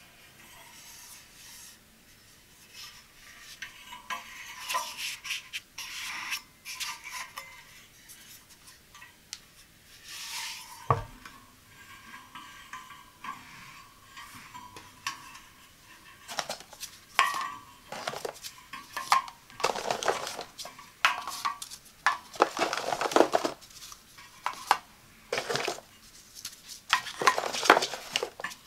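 Black metal wire coffee pod carousel handled by hand, its wire rings clinking and rubbing, with a single sharp knock about a third of the way in. In the second half, plastic K-cup coffee pods are pushed into the wire rings, giving dense, louder clicks and scrapes.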